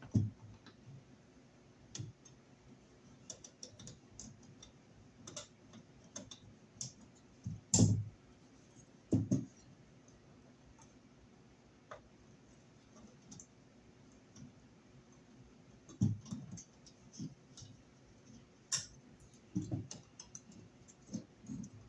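Irregular small clicks and a few louder knocks of a screwdriver and wires being worked at the terminals of an old line-voltage electric heater thermostat, as its wires are taken off. The loudest knock comes about eight seconds in.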